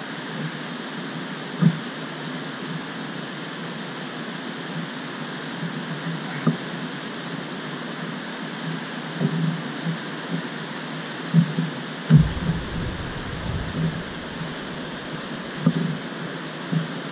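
Steady rushing of water spilling through dam gates. It is broken by a handful of short knocks and thumps, with one low rumble about twelve seconds in.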